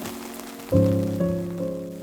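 Soft background music: a chord is struck a little under a second in and dies away, over a steady patter of rain.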